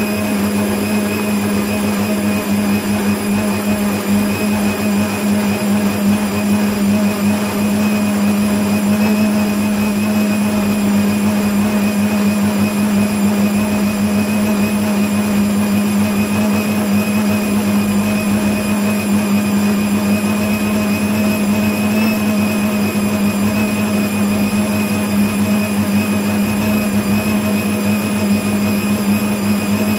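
Electric stand mixer running at a steady speed, its motor giving a constant hum as the whisk beats egg whites and sugar while hot agar syrup is added for zefir.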